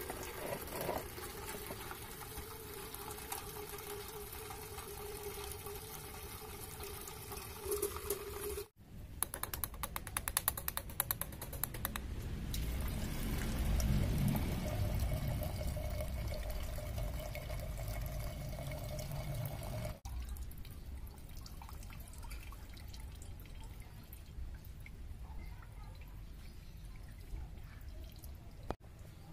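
A thin stream of petrol running from a motorcycle's fuel hose into a metal tin can, splashing steadily with a faint hollow ringing as the can fills. This is the fuel tank being drained.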